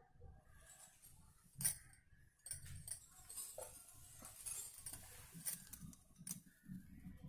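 Faint handling noises of a crocheted wool pouch being lifted and laid flat on a tiled floor: soft rustling with a few light clicks and clinks, the sharpest about a second and a half in.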